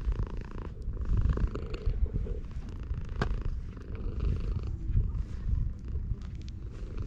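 Domestic cat purring steadily while its head is stroked, close to the microphone. A single sharp click sounds about three seconds in.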